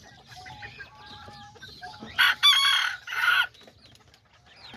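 A small bantam rooster crowing once, about two seconds in, the crow broken into three parts, over faint clucking from other chickens.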